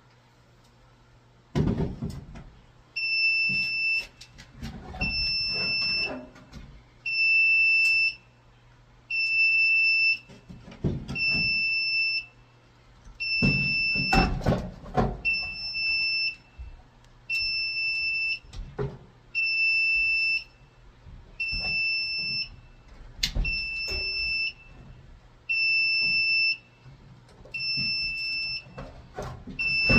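Fire alarm control panel's trouble sounder beeping: a steady high-pitched beep about once every two seconds, starting about three seconds in, signalling a power (battery) trouble. Scattered knocks and clatter from handling at the panel come between the beeps.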